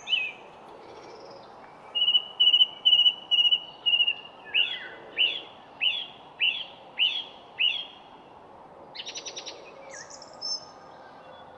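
Birds singing: first a quick run of short, even, high notes, then seven clear downward-sweeping notes about half a second apart, and a short rapid trill near the end, over a steady background hiss.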